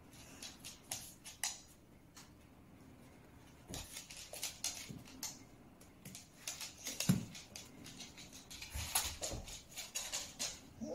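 Paws and claws of a dog and a cat scrabbling and tapping on a wooden floor as they play-fight: quick irregular clicks and scuffles, with a louder thump about seven seconds in.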